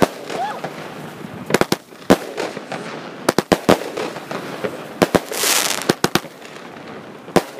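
Aerial fireworks bursting overhead: a dozen or so sharp bangs and cracks at uneven spacing, with a hissing rush a little past halfway.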